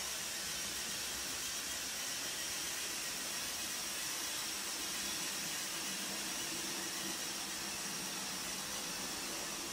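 Lego Technic 4x4 off-roader's Powered Up motors and gear train running steadily as it tows a heavy load, a constant even whirring noise.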